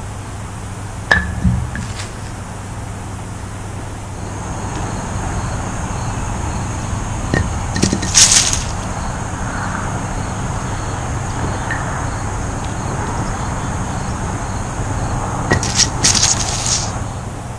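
Wooden kubb batons landing among the wooden blocks and on the grass with sharp wooden clacks: a couple of knocks about a second in, a louder cluster around eight seconds, and a quick flurry of several near the end. A steady low hum sits underneath throughout.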